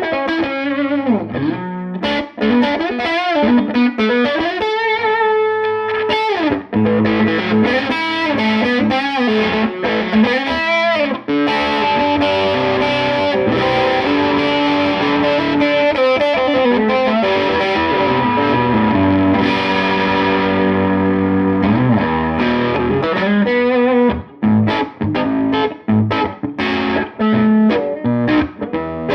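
Distorted electric guitar played through a Tone King Gremlin tube amp on its lead channel. It opens with bent, wavering single-note lead lines, moves to long sustained notes and chords, and ends with short choppy chords broken by brief gaps.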